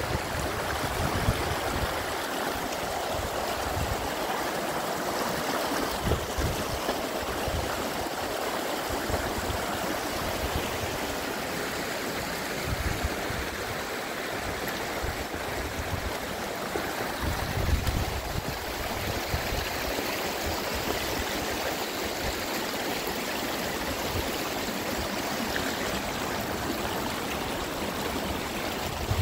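Muddy storm runoff rushing steadily down a gravel channel over stones, with irregular gusts of wind buffeting the microphone.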